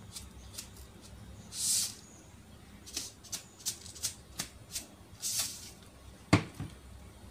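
Light scattered clicks and taps of a spoon and containers being handled while salt is spooned onto chicken in a plastic bowl, with two short hissing rustles and one sharper knock about six seconds in.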